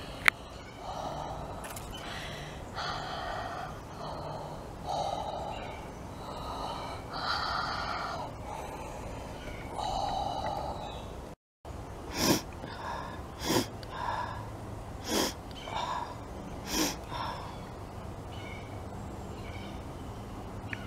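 A woman's breathy gasps and sniffles, each about a second long, while eating raw onion. After a brief dropout about halfway through come a string of short, sharp sniffs, four of them louder than the rest.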